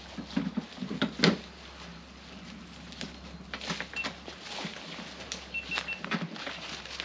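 Scattered rustling and knocks, the loudest a sharp knock about a second in, with a few short high chirps near the middle and end.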